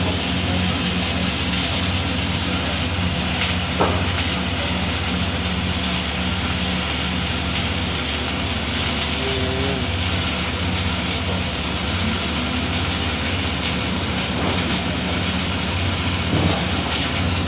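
Arc welding: a steady crackling hiss from the arc over the even hum of the welding machine, with one sharp click about four seconds in.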